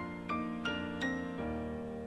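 Gentle piano background music: single notes struck about three times a second over held low notes.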